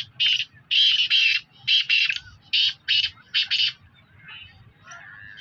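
Caged partridges calling: loud, harsh, rasping notes, often in quick pairs, about ten in the first four seconds, then they stop.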